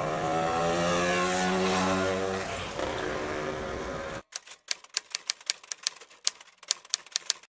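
A motor vehicle engine passing close by, its note sinking slightly. About four seconds in it cuts off abruptly and quick typewriter key clicks take over, about four or five a second, as a typing sound effect.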